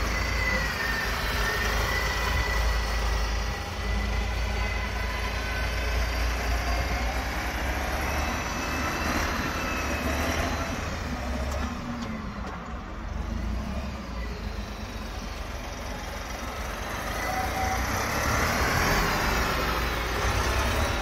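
Carraro Compact V75 tractor's Deutz diesel engine running, with a thin whine over the low rumble that shifts a little in pitch. The engine eases off a little past the middle and builds up again near the end.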